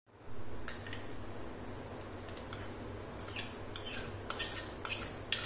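Metal spoon clinking and scraping against glass bowls while scooping boiled sweet-corn kernels from one bowl into another: scattered light clinks that come more often in the second half.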